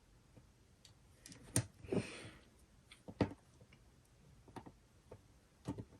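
Small plastic clicks and taps from handling a phone's internal parts while trying to unclip a connector, with a short scrape about two seconds in.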